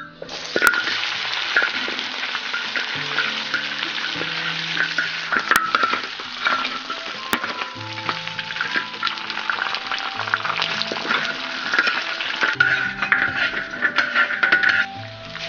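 Pieces of pig trotter sizzling as they fry in a large wok, stirred and scraped with a spatula. The sizzling stops shortly before the end.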